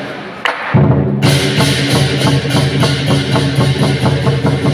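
Lion dance drumming: drums struck in a fast, steady rhythm over music, kicking in loudly after a brief drop about half a second in.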